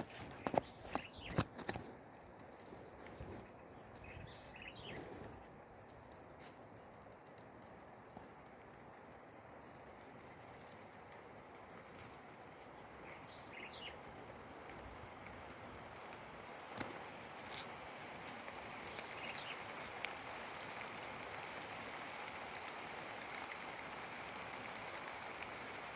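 Quiet outdoor ambience: a thin, steady, high-pitched insect trill that drops out about halfway through and returns, with a few short bird chirps. There are several sharp knocks in the first two seconds.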